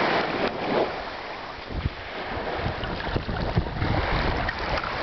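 Small waves washing in over sand in shallow water, with wind buffeting the microphone. The wash is loudest at the start, eases after about a second and swells again near the end.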